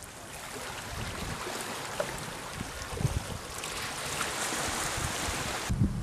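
Small sea waves washing over a rocky shore: an even rushing noise that fades in and slowly swells, with a few soft thuds, then cuts off sharply near the end.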